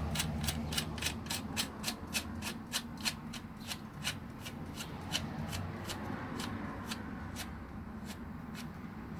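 Ratchet clicking steadily, about five clicks a second, as a bottom bracket cup is threaded into the frame with the cup tool; the clicks thin out over the last few seconds.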